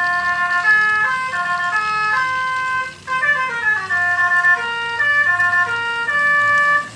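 Telolet basuri horn playing a tune of several tones sounding together, stepping from note to note in a phrase that repeats, with short breaks about three seconds in and at the end.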